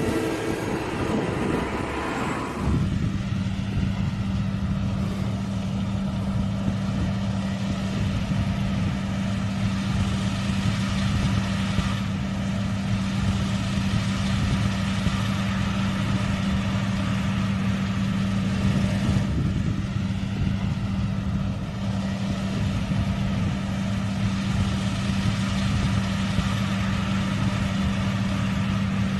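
Combine harvester engine running steadily with an even, unchanging hum. It takes over about two and a half seconds in, after a held, horn-like multi-pitched tone ends.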